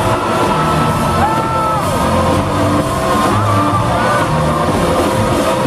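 Live rock band with a drum kit pounding out low, heavy beats. Held, sliding high tones ride over it, with crowd whoops and cheering.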